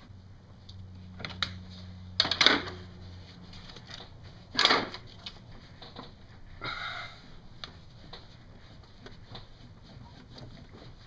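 A few sharp metal knocks and clunks, the loudest about four and a half seconds in, with a short scrape a couple of seconds later and lighter ticks after, as a pry bar and hands work an AC compressor loose from its engine mount.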